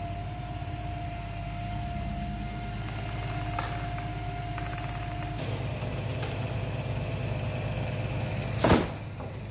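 Truck engine running steadily under a truck-mounted crane, with a steady whine that drops away about five seconds in. A brief loud noise near the end.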